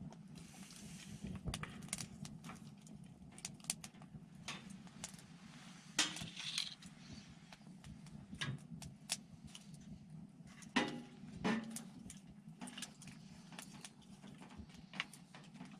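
Wood fire crackling: irregular sharp pops and snaps, a couple louder than the rest, over a low steady hum.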